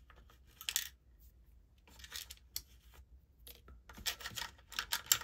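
Small silver jewelry pieces (chains, earrings, a pendant) clinking lightly as fingers pick through a pile of them, a few scattered clicks with a denser run of small clinks near the end.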